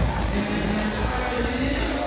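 Loud hip-hop beat with heavy bass playing through a club sound system, with a rapper's voice on the microphone over it.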